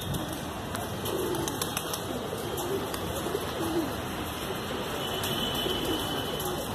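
Domestic pigeons (desi high flyers) cooing, with low coos coming again and again from the flock.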